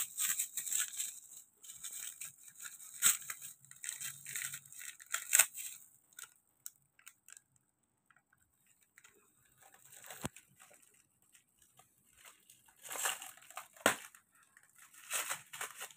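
Plastic wrapping and shredded paper packing crinkling and rustling as hands unwrap small gift packets, in irregular bursts with a quiet stretch in the middle.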